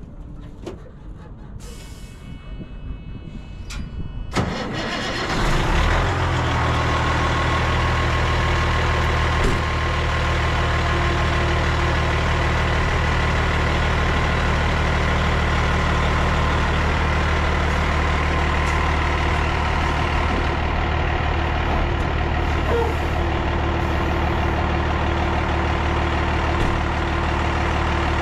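Pickup truck engine cranked and started about four seconds in, catching within a couple of seconds and then idling steadily.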